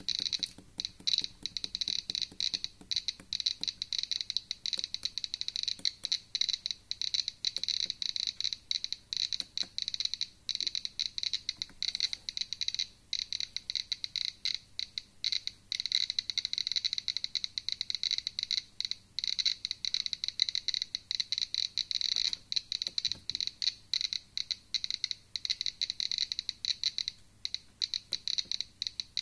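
Homemade Geiger counter with an SBT-10 tube clicking rapidly and irregularly, one sharp high click per detected particle, packed into a dense crackle with short thinner stretches. The rate is about 1100 counts per minute (around 6 µSv), high enough to set off the counter's alarm.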